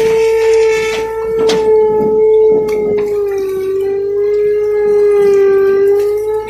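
Komatsu excavator running with a steady high-pitched whine that sags slightly in pitch for a couple of seconds and then recovers, with scattered knocks and scraping.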